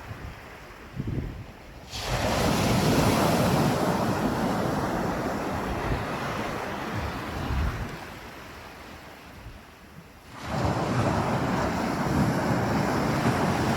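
North Sea surf: a wave breaks and washes up the beach about two seconds in, fades to a lull, and another breaks about ten and a half seconds in. Wind buffets the microphone in the quieter stretches.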